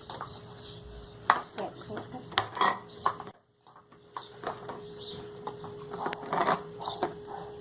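Light clinks and knocks of small containers and utensils being handled on a table, mixed with faint voices, with a brief drop to near silence a little past three seconds in.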